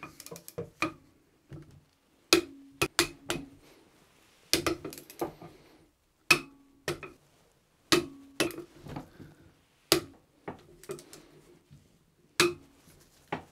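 Ratchet of a long-handled socket wrench clicking as bolts on a Volvo Penta 130S saildrive's housing flange are snugged up: sharp metallic clicks in small groups of two to four every second or two, some leaving a brief low ring in the aluminium housing.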